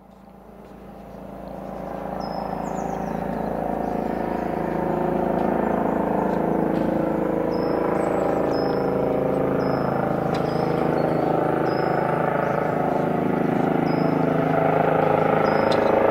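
Rescue helicopter approaching to land, its rotor and engine sound growing louder over the first five seconds, then steady. A small bird chirps over it again and again.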